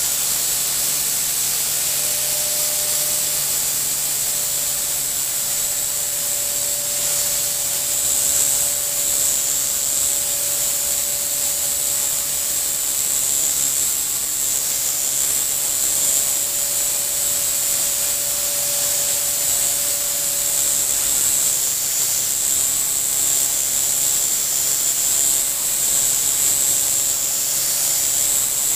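Blade 130X micro RC helicopter hovering: a steady high motor whine over the hiss of the spinning rotor blades, with a constant lower tone underneath. Its tail rotor hub has just been re-trued on the tail shaft.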